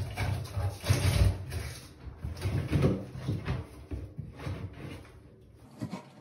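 Flexible foil dryer duct crinkling and scraping as it is squeezed and pushed up into a ceiling vent fan's metal housing; busiest in the first two seconds, then fainter.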